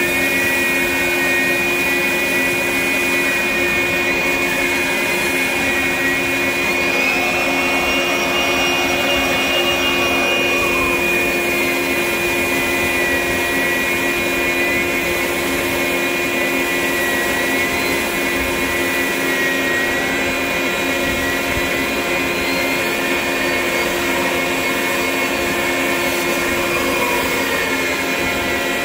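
A 9-inch dustless drywall sander with a 60-grit disc running against a boat's painted hull bottom, together with the shop vacuum drawing dust through its hose: a steady motor whine. About seven seconds in, a higher tone in the whine rises and holds, then drops back about four seconds later.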